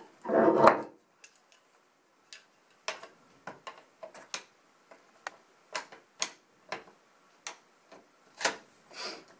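Aluminium tubing and push-button fittings of a dog wheelchair frame being handled and adjusted: a brief loud squeak about half a second in, then a scattered series of sharp clicks and taps as the parts knock and snap into place.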